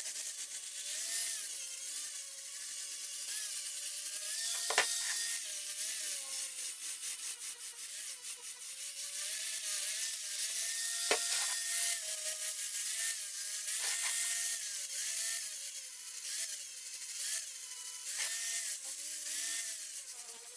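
Electric angle grinder grinding a steel train-rail anvil, its motor whine wavering up and down in pitch as the disc bears on and eases off the steel. A few sharp clicks stand out along the way.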